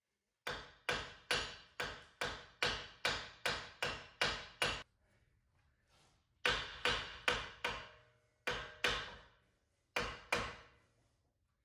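Hammer blows on the end of a new CV axle, driving its splines into a Subaru Forester's front wheel hub. It starts as a steady run of about eleven sharp metallic strikes at two to three a second, each ringing briefly. After a pause come several shorter runs of blows.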